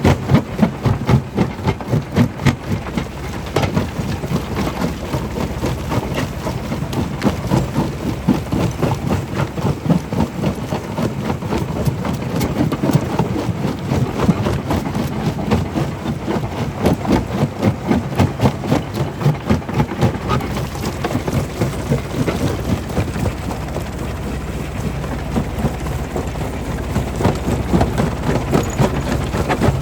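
Stone crusher running, a continuous loud rumble packed with many knocks as rock is broken and tumbles through the machine.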